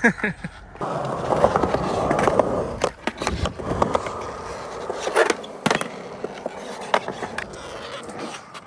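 Skateboard wheels rolling over smooth concrete with a steady rumble. From about three seconds in come several sharp clacks of the board hitting the ground.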